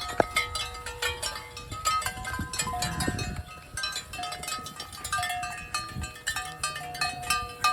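Bells worn by cattle clanking irregularly as the cows walk up, many short ringing notes at a few different pitches.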